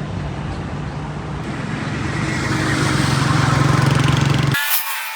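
Motor vehicle engine running steadily with road noise building up. About four and a half seconds in, the low engine sound cuts off abruptly, leaving a high hiss.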